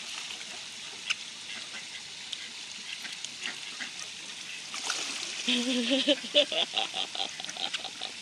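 Water splashing lightly as waterfowl feed at the pond's edge. About five and a half seconds in, a duck quacks in a quick run of calls that fades away.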